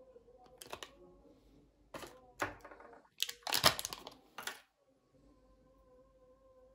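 Clear plastic packaging crinkling and rustling in short bursts with light clicks as a smartwatch and its strap are handled; the loudest burst comes about halfway through. A faint steady hum runs underneath.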